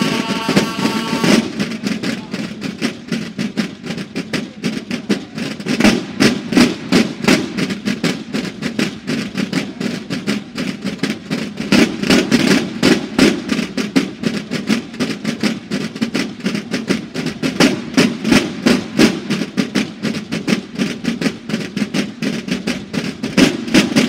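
Banda de guerra of bugles and marching drums: the bugles hold a chord that cuts off about a second in, then the massed drums play a fast cadence of rolls and accented strokes, swelling louder several times.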